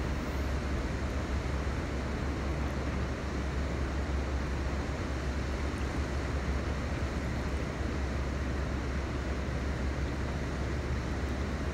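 Steady low rumble with an even hiss over it: unbroken outdoor background noise with no single event standing out.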